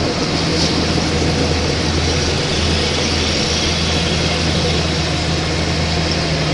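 Radio-controlled construction model running: a steady, engine-like drone with a low hum and a broad mechanical whir that does not change.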